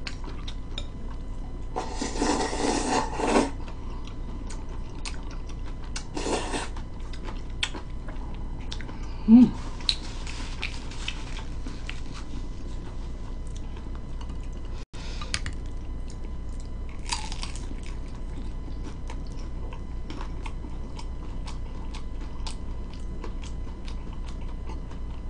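Close-up eating sounds: chewing, with small clicks of chopsticks and dishes throughout. A louder noisy burst comes about two seconds in, and shorter ones follow.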